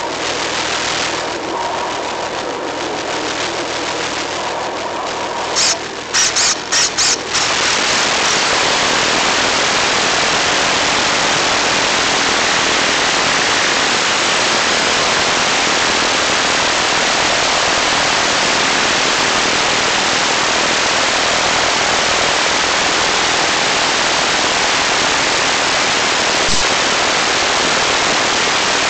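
Analog FPV receiver audio losing the signal from the plane: the noisy onboard sound cuts in and out in choppy bursts about six seconds in, then gives way to a steady hiss of static as the video link drops out.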